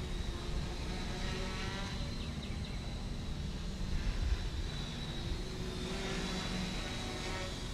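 The NEX NEO quadcopter's 900 kV brushless motors and propellers whine in flight. The whine bends in pitch twice, about two and six seconds in, over a steady low rumble.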